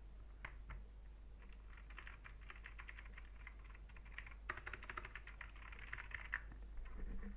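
Savio Tempest RX mechanical keyboard with clicky blue switches being typed on fast. A couple of single key presses come first, then a rapid run of sharp clicks lasting about five seconds, with a brief pause in the middle, stopping shortly before the end.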